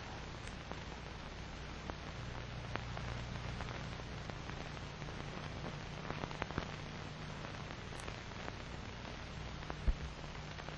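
Surface noise of an old film soundtrack: a steady hiss and low hum with scattered faint crackles, and one louder low pop near the end.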